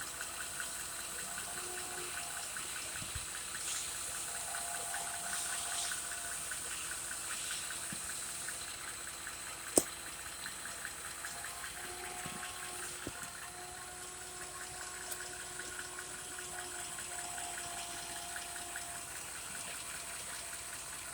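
A 3.6-litre engine idling with the shake the owner compares to a misfire: a steady run with fast, even ticking, and one sharp click about ten seconds in.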